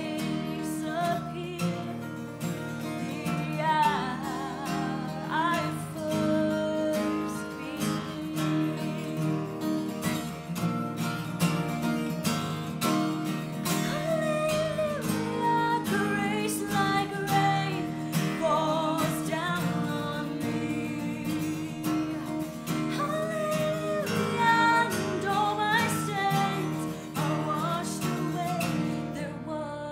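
Music: a worship song with strummed acoustic guitar and a singing voice carrying the melody.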